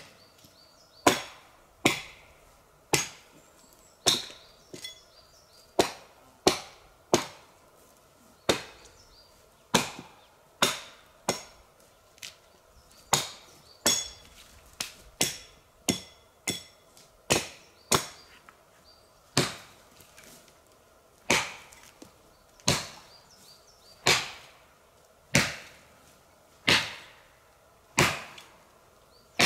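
Axe chopping into a fallen log: a long run of single blows, each a sharp woody knock with a short ringing tail, coming a little under a second apart at an uneven pace.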